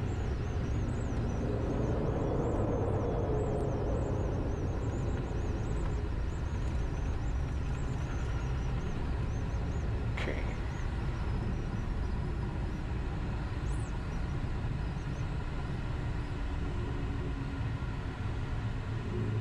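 Cockpit noise of a Learjet 60XR on its landing rollout: the twin turbofans running in reverse thrust over a steady low rumble from the wheels on the runway.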